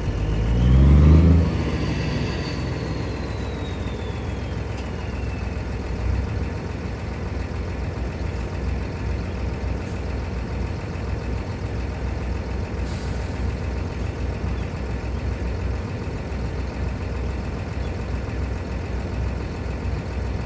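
Engine revving up briefly about a second in, with a high whine that falls away over the next few seconds, then running steadily at a low rumble.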